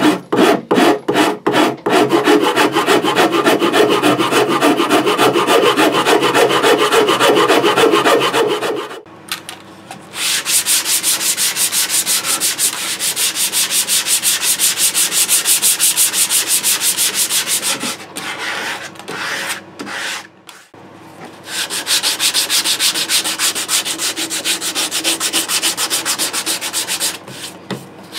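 Shinto saw rasp rasping wood off the forearm contour of a Stratocaster-style guitar body. It starts as quick separate strokes that run together into continuous rasping. After about nine seconds it gives way to hand sanding of the contour with a sanding block and sandpaper, in long stretches with a few short pauses.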